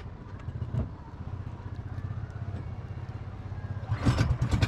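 Outrigger boat's engine chugging steadily, with a low pulsing throb. About four seconds in it grows louder under a burst of rushing noise.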